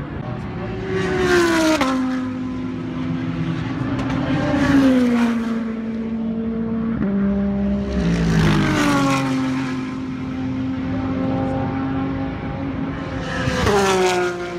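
Race cars passing one after another, about four in turn. Each engine note sweeps down in pitch as the car goes by, with a few sudden steps down, and other cars' engines keep running between the passes.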